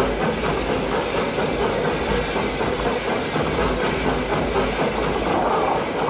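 Steam locomotive running along the rails: a steady rumble with a quick, rhythmic clatter throughout.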